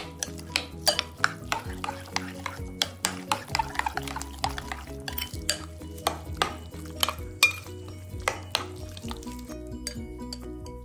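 A utensil stirring a thick yogurt and grated zucchini mixture in a glass bowl, with many quick clinks and scrapes against the glass that stop near the end. Soft background music runs underneath.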